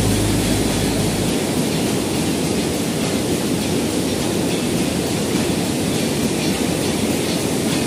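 Steady rushing roar of a fast white-water mountain river tumbling over boulders.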